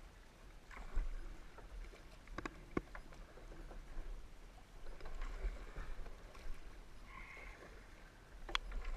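Kayak paddling down a shallow, low-water creek: paddle strokes and water rippling along the hull, with a few sharp knocks.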